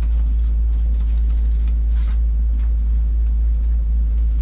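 A steady low hum, with a few faint snips and rustles of scissors cutting folded purple construction paper. The clearest snip comes about two seconds in.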